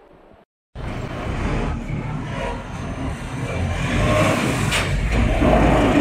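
After a brief silence, the engine of a 4YZ-4Y four-row corn harvester runs as the machine drives, growing a little louder, with a rising whine in the last couple of seconds.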